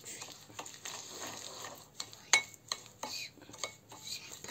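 Metal spoon scraping and clinking against a glass bowl as ghee and ground sugar are beaten together, with a sharper clink a little over two seconds in.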